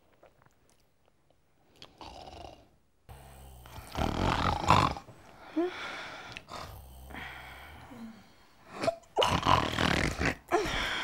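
A person snoring loudly: about three long, low snores, the first starting about three seconds in.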